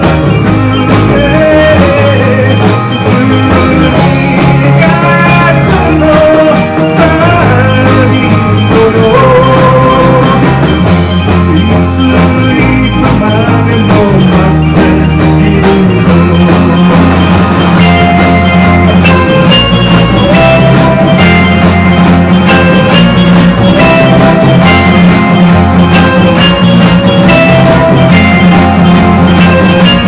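Full band playing an instrumental passage of a pop-rock song: drum kit, strummed acoustic guitars, electric guitars, electric bass and electric piano together, with a melody line stepping along above a steady bass and beat.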